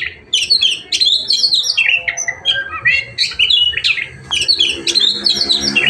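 A songbird singing a fast, continuous run of short, varied chirps and whistled notes with hardly a pause.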